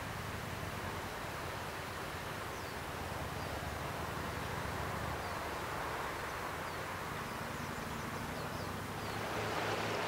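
Steady outdoor wind noise with a low hum and a few faint, high bird chirps. About nine seconds in, a motorboat's engine and the splash of its wake come in louder.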